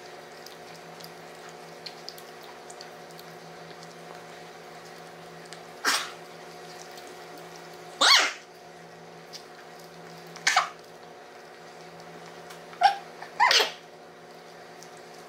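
Short wordless vocal outbursts, about five of them, from people trying to eat pancakes with their mouths held wide open by cheek retractors, the loudest a half-second burst about eight seconds in. A steady hum runs underneath.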